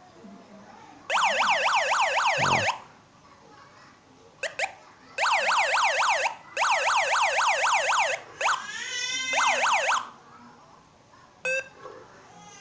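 Homemade electronic siren built on a toy siren sound chip, sounding in on-off bursts of a fast up-and-down warble, about five sweeps a second. A little past halfway it switches briefly to a run of quick rising chirps.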